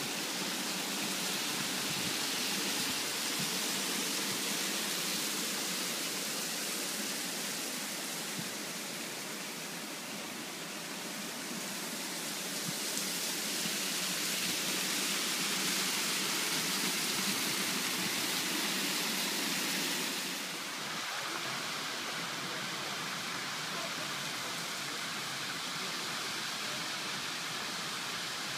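Steady rushing hiss of steam and water at a geothermal field. About two-thirds of the way through it changes to the even rush of a geyser erupting, with steam venting beside it.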